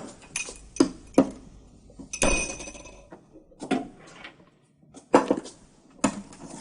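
Dishes and cutlery clinking: a series of sharp knocks and clinks, with a cup or glass ringing briefly about two seconds in.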